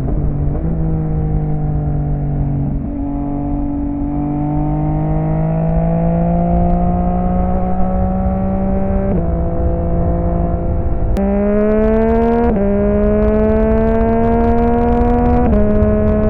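Yamaha XSR900 inline-three engine running through an aftermarket M4 exhaust under steady throttle. Its pitch climbs slowly, then steps abruptly several times as the gears change, with a sharp click about eleven seconds in.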